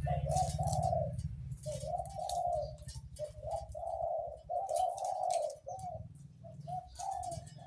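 Captive-bred zebra dove cooing in a run of short, deep phrases, bred and kept for its big voice. A low engine rumble fades out in the first second or so.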